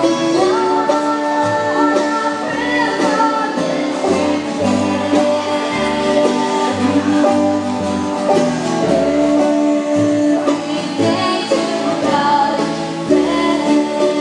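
A gospel bluegrass band playing with singing: acoustic guitar and other plucked strings over a steady bass line.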